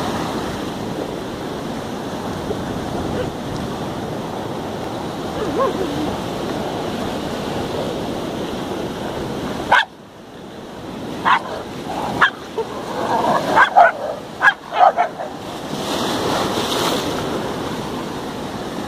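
Surf breaking and washing over rocks in a steady rush. About halfway through it drops away suddenly, and then dogs bark territorially in a quick series of sharp, loud barks for several seconds before the surf returns.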